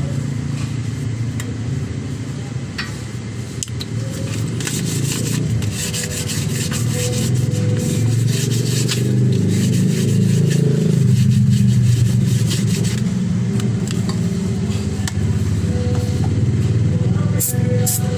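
Continuous hand rubbing and scraping of sandpaper on a brake rotor as it is cleaned and sanded.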